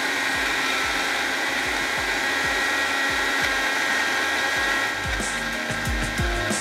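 Electric kitchen blender running at full speed, grinding green chutney: a steady motor whine. A little after five seconds in, the sound turns rougher with low knocks.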